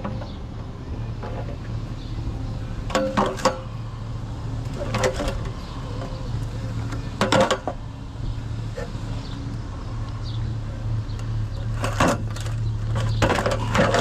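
A vehicle engine running with a steady low hum, with several sharp knocks and clanks scattered through it.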